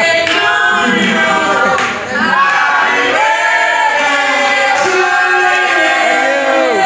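Vocal group singing in harmony without instruments, several voices holding and gliding between sustained notes.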